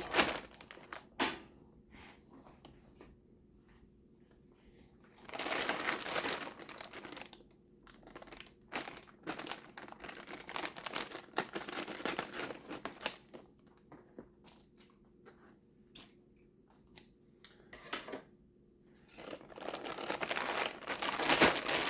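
Plastic packaging bags crinkling and rustling in bursts, loudest near the end, with a sharp click about a second in.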